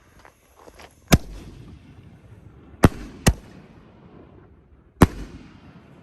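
5-inch Nishiki aerial firework shells going off in four loud booms: one about a second in, two close together near the middle, one near the end, each trailing off in a rolling echo.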